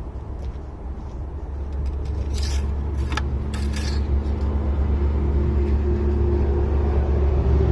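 A low, steady rumble that grows louder after about two seconds. Between about two and four seconds in there are a few short rustling wipes, as the oil dipstick is wiped off with a rag.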